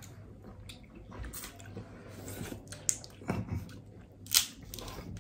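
Eating sounds: soft chewing and the picking and pulling apart of boiled crab shell by hand, with a few short sharp cracks and snaps in the second half.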